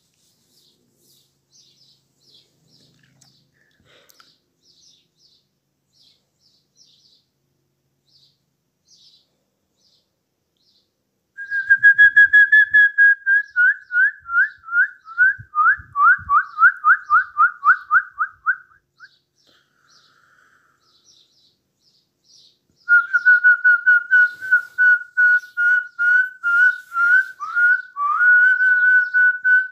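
A person whistling fast strings of short, pure notes, each sliding slightly down, about three or four a second. The first run lasts about seven seconds, and after a short pause a second, steadier run starts near the end. Faint, scattered bird chirps are heard during the first ten seconds or so.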